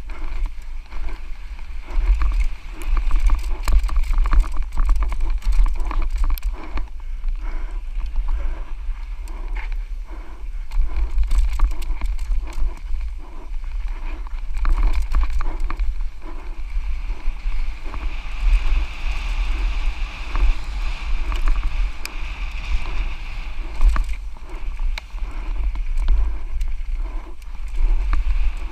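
Santa Cruz Nomad full-suspension mountain bike descending a rough dirt trail at race speed, heard from a camera on the rider: wind rumbling on the microphone under tyre noise, with constant clicks and rattles from the bike over bumps.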